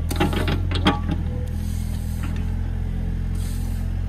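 Diesel engine running steadily under short scrapes and knocks of a steel shovel working sand in a truck bed during the first second, and a brief hiss of sand sliding about three and a half seconds in.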